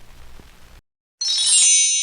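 The faint end of a stethoscope heart-sound recording cuts off to silence. About a second in, a bright chime made of several high ringing tones strikes once and rings on, slowly fading.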